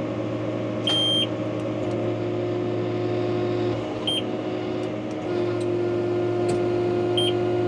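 New Holland T6.155 tractor's four-cylinder engine running steadily, its hum dipping a little for a moment near the middle. Three high electronic beeps cut in about a second in, about four seconds in and near the end, the first one the longest.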